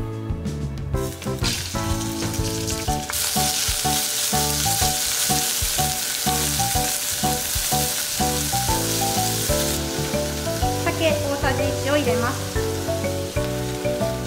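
Sliced beef sizzling in hot oil in a stainless steel pot. The sizzle grows loud about three seconds in and eases near the ten-second mark. Background music plays throughout.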